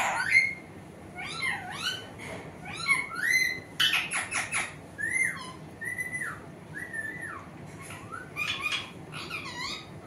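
Alexandrine parakeet calling: a string of short chattering, whistle-like calls that glide up and down, including three similar calls about five to seven seconds in that each rise and then drop. There are a few sharp clicks about four seconds in.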